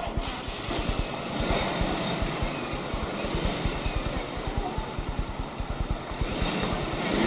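A vehicle engine idling with a low, uneven rumble.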